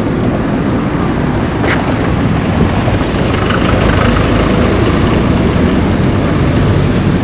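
Steady street traffic noise, with a vehicle passing through the middle and a short click about 1.7 seconds in.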